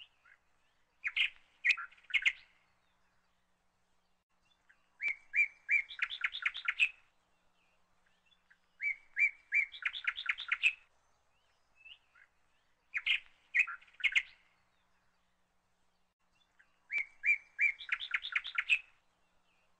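A bird chirping in five short phrases a few seconds apart. Each phrase is a few separate chirps followed by a quick run of notes.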